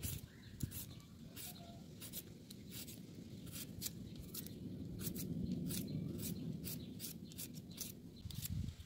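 Y-shaped vegetable peeler scraping strips of skin off a raw potato: short rasping strokes, about two to three a second, over a low background rumble that swells in the middle.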